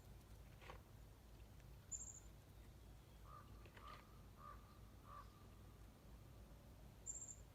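Near silence with a faint low rumble; a few seconds in, a bird gives four faint short calls in quick succession.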